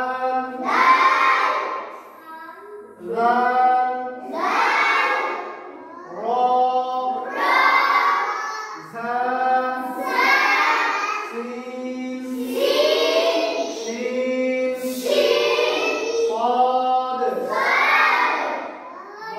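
A group of children reciting Arabic letters in unison in a sing-song chant, short phrases one after another with held notes.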